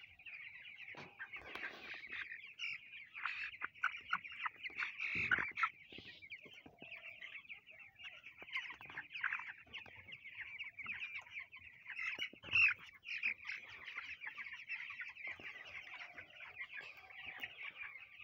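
A flock of 16-day-old broiler chicks peeping continuously, a dense chorus of high cheeps, with a few soft knocks, the clearest about five seconds in.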